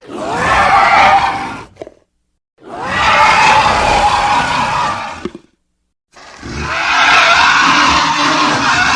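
Tyrannosaurus rex roar sound effect played three times in a row. Each roar is long and loud, lasting about two to three and a half seconds, with a clean silence between them.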